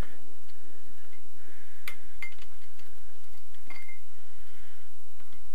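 A socket on a hand-turned extension bar slackening cylinder head bolts, giving a few light metal clinks with a short ring.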